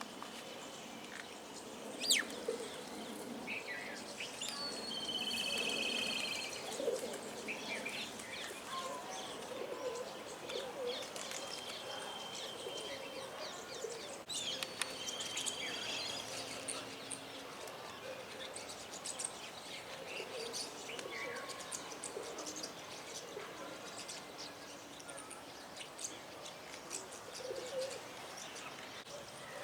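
Birds chirping and singing, with many short calls and a few brief trills overlapping. A single sharp click sounds about two seconds in.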